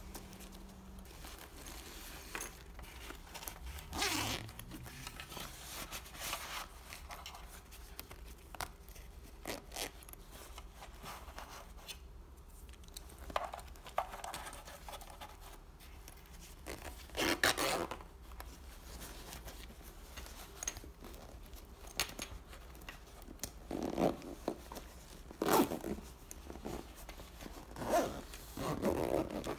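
Hands handling a padded nylon camera bag: fabric rubbing and scraping, with short zipper-like rasps scattered through, the loudest near the middle and several in the last few seconds.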